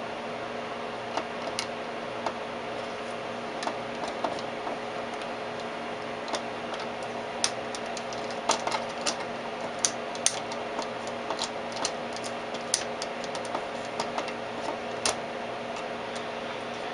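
Steady hum of a running vacuum-tube oscilloscope setup, with irregular light clicks scattered through that come more often in the second half.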